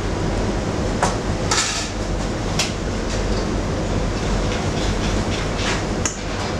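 Steady rush of a commercial kitchen's running equipment, with the sharp clank of metal pans and utensils being handled several times.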